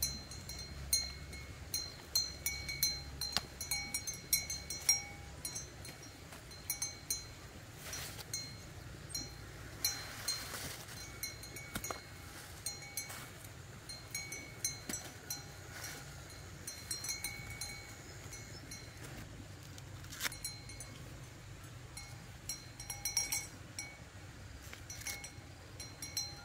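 Dry corn husks crackling and tearing as ears of corn are peeled by hand, in a string of short sharp crackles. A small bell-like clink sounds again and again at the same pitches.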